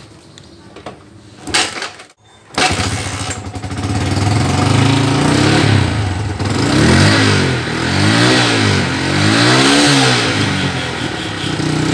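Yamaha Vixion's 150 cc single-cylinder four-stroke engine starting up about two and a half seconds in, then idling and being revved up and down several times. The cylinder head has just had its camshaft bearing replaced and its coolant refilled, and this first run is to check whether the harsh head noise is gone.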